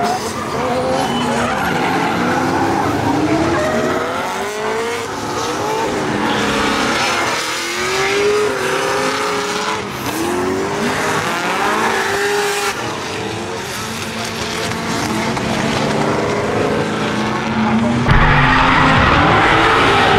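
Drift cars sliding sideways through a corner, their engines revving up and down over the squeal and hiss of spinning tyres. Near the end the sound jumps louder.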